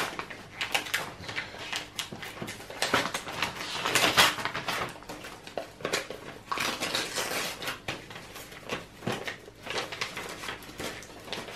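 Paper and plastic parcel wrapping being torn open and crinkled by hand: a run of irregular rustles and crackles.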